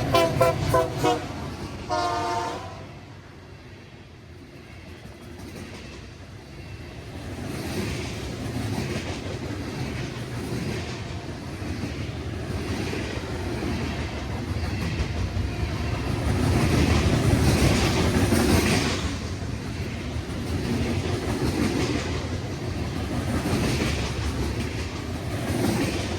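Train horn sounding in short pulsing blasts, with a last short blast about two seconds in. Then a train rolls by, its wheels clattering over the rail joints, getting louder and loudest a little past the middle.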